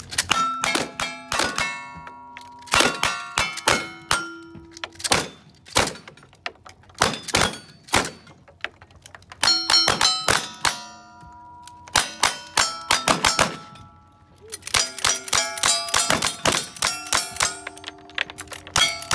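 Rapid strings of gunshots from revolvers, lever-action rifles and shotguns, with steel targets ringing out at several pitches as they are hit. There are short pauses between strings and a fast, dense run of shots and rings near the end.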